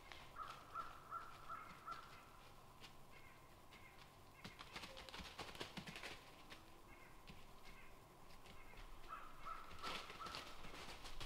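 A crow cawing in a quick run of about five calls near the start and again near the end, faint and distant. Faint scattered crackles come in between.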